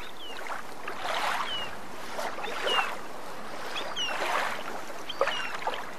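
Ocean waves washing in, swelling about a second in and again about four seconds in, with short high falling chirps over the surf.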